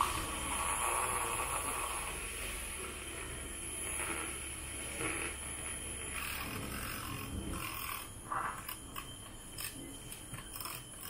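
Handheld battery milk frother whirring steadily as it whips instant coffee into foam in a small glass. The whirr stops about eight seconds in, and a few short clicks follow.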